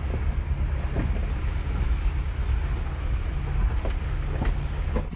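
Ford Endeavour SUV rolling over a rough, rocky track, heard from inside the cabin as a steady low rumble. A few short knocks come through as the tyres and suspension go over stones.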